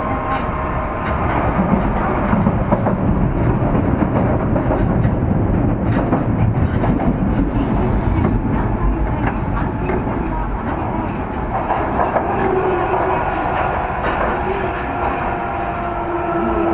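Running noise inside an Osaka Metro 30000 series subway car in the tunnel: steady wheel-and-rail rumble with repeated rail-joint clicks. From about eleven seconds in, the tones of the Mitsubishi IGBT-VVVF inverter and traction motors come up as the train nears the station.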